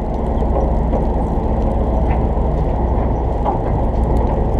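Charter boat's engine running steadily with a low hum, heard muffled.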